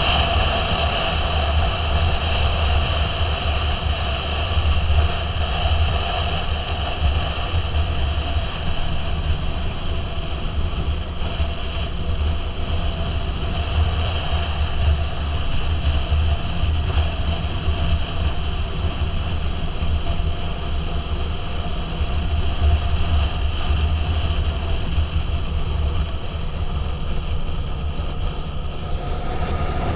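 Motorcycle running steadily while riding at a constant road speed: a continuous low engine rumble mixed with wind and road noise.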